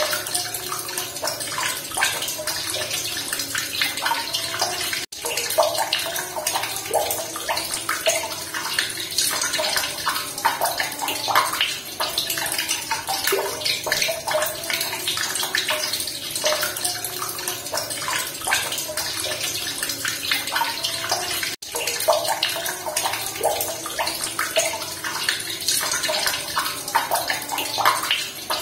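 Running water splashing steadily in a dense, even rush of small splashes. It cuts out for a split second about five seconds in and again about twenty-one seconds in.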